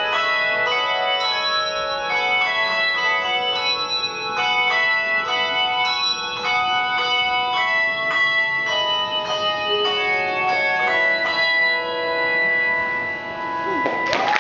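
Handbell ensemble ringing a melody: many bells struck in quick succession, their notes ringing on and overlapping. The playing thins out toward the end, and audience whistling and cheering break in right at the end.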